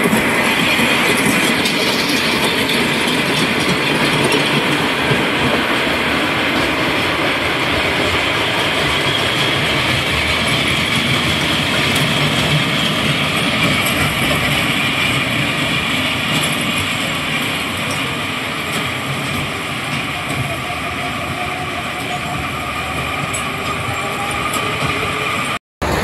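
Wacky Worm kiddie coaster cars rolling along the steel track with a steady rumble and rattle of the wheels on the rails. It eases a little in the second half and cuts out briefly near the end.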